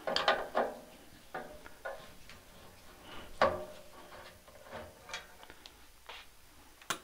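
Screwdriver backing screws out of the back of a vintage oscilloscope's sheet-metal cabinet: scattered light clicks and short metal-on-metal scrapes, with a sharper click near the end.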